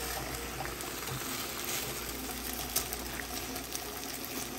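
Seafood sauce with octopus pieces simmering in a frying pan, a steady bubbling sizzle, as a wooden spoon stirs the pieces in. One light knock about three seconds in.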